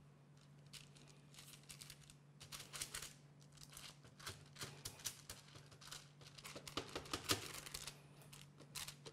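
Baking paper crinkling and rustling under hands that press and stretch flatbread dough out on a lined baking tray, in quick irregular rustles, loudest about seven seconds in, over a faint steady low hum.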